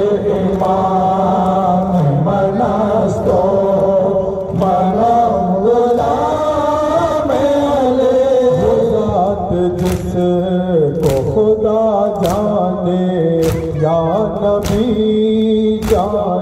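Men's voices chanting a noha (Urdu lament) in unison, in long held, gliding notes. From about ten seconds in, sharp slaps join at a steady beat of roughly three every two seconds: matam, the rhythmic beating of chests with the hands.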